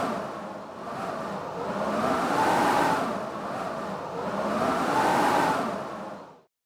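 Blizzard wind howling in gusts, swelling and fading about every two and a half seconds with a whistling tone that rises and falls with each gust. It cuts off suddenly near the end.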